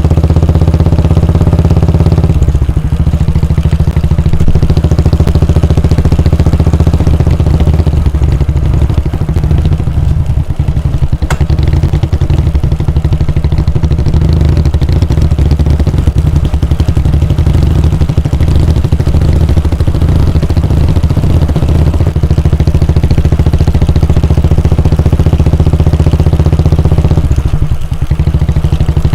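Royal Enfield Bullet 350's 349 cc air-cooled single-cylinder engine running with its exhaust thump. The note breaks briefly about two seconds in and again near the end, and there is one sharp click about eleven seconds in.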